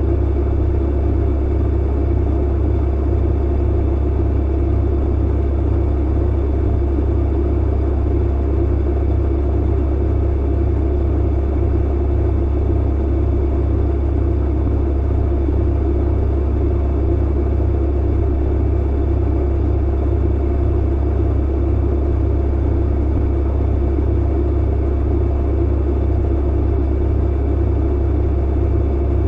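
Clothes dryer running steadily: a loud, unchanging low hum from the motor and drum with an even rushing noise over it.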